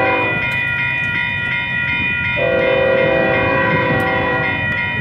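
An approaching freight locomotive's horn sounding over a railroad crossing's steady warning bell. There is a brief blast right at the start and a longer one of about two seconds from a little before halfway.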